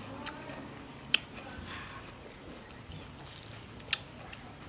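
Eating sounds: a few short, sharp smacks and clicks while red pomelo segments are peeled apart and chewed, the loudest about a second in and near the end.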